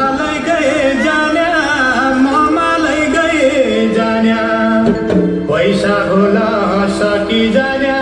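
Song with a singer's voice gliding between notes over sustained instrumental accompaniment.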